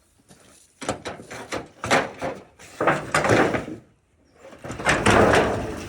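Wood and debris scraping, rustling and knocking in three bursts of clatter as they are prodded and shifted with a stick while hunting for a snake, the last burst the loudest.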